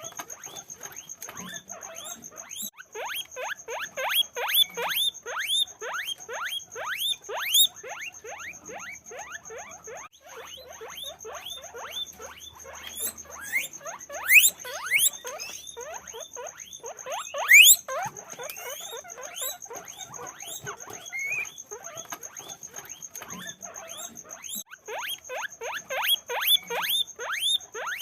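Guinea pigs squeaking in a rapid, continuous series of short rising squeaks, several a second, with two louder, longer rising squeals past the middle. A faint steady high-pitched whine runs underneath.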